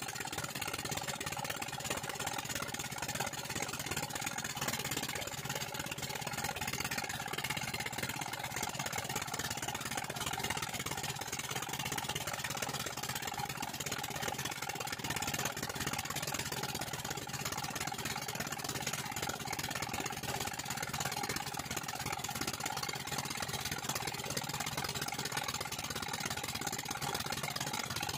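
Belt-driven 'Peter' stationary diesel engine running steadily at an even speed, a constant low hum with no change in pitch.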